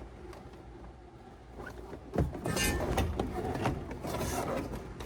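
Handling noises of a car part being worked loose and pulled out of a car's interior: irregular scraping and rustling, with a sharp knock about two seconds in and busier scraping after it.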